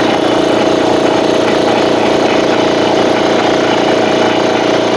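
PowerStar PS-47L 2 HP direct-coupled piston air compressor running, its induction motor and pump head giving a loud, even drone with a steady hum as it pumps up the tank.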